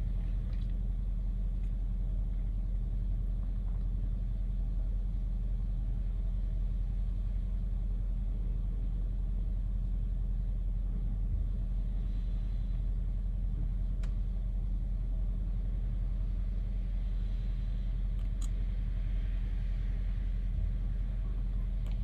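Mercedes-Benz W166 M-Class/GLE engine idling, a steady low rumble.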